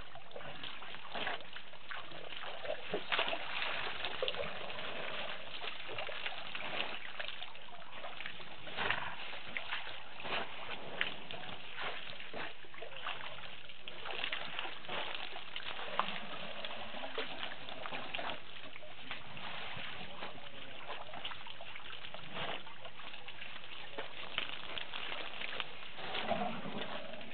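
African elephants drinking at a waterhole: water splashing and sloshing in frequent short bursts as their trunks draw it up and spill it, over a steady background hiss. A brief lower sound near the end.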